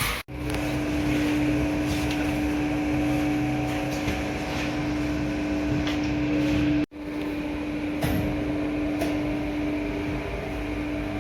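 A steady machine hum holding one constant pitch, cut off abruptly twice and resuming at once.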